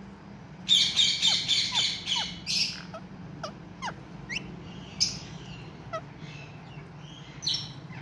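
Indian ringneck parakeets calling: a quick run of about six loud, harsh squawks starting about a second in, then scattered shorter calls and brief falling whistled notes.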